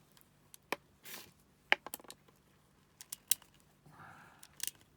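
Small plastic clicks and scrapes as 6 mm airsoft BBs are pushed one at a time into the magazine of a Tokyo Marui Glock 17 air pistol, about five sharp clicks spaced irregularly, with a brief rubbing noise about a second in and another near the end.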